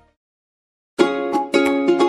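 Dead silence for about a second, then background music with short, repeated notes starts abruptly.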